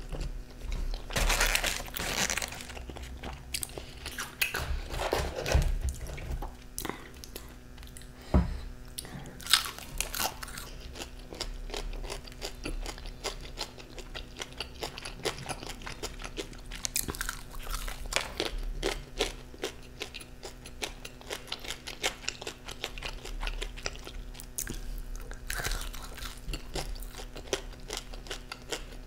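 Close-miked chewing and biting: mouthfuls of a chicken tikka sub sandwich, then bites of crispy fried chicken, with irregular sharp crunches throughout.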